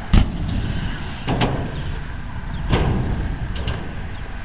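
BMX bike dropping in on a skatepark ramp: a sharp thud as the wheels hit the ramp just after the start, then rolling rumble with softer knocks about a second and a half and nearly three seconds in.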